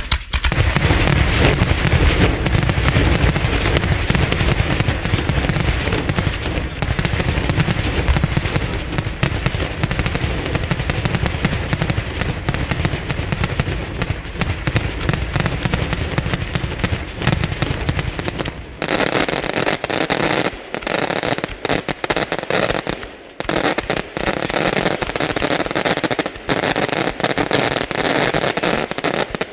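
A ground battery (bateria) of 3-inch salutes and flash bangers firing in rapid, overlapping succession: a dense, continuous barrage of heavy bangs. About two-thirds of the way through it thins to lighter, more separated bangs, with a brief lull a few seconds later.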